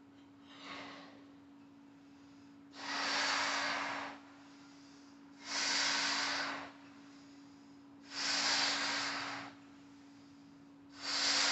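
A man blowing up a latex balloon by mouth: a short puff, then four long, forceful breaths into the balloon at an even pace, each about a second and a half.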